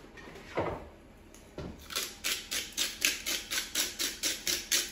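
Hand-twisted salt grinder worked over a bowl: a fast, even run of ratcheting grinding clicks, about five a second, lasting about three seconds, after a single knock about half a second in.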